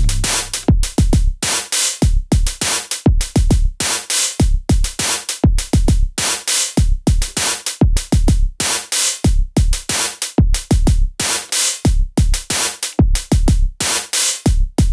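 Elektron Digitone FM synthesizer playing programmed electronic drums: a steady looping beat of deep kick drums under bright hi-hat-like hits.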